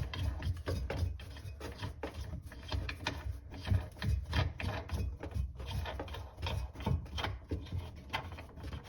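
Faucet mounting nut being turned by hand onto the faucet shank from below the sink: a string of irregular ratchety clicks and scraping rubs as the nut is worked tight, over a low steady hum.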